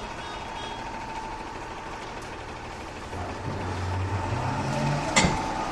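Heavy vehicle engine running; about three seconds in it grows louder and its pitch rises. A single sharp knock sounds near the end.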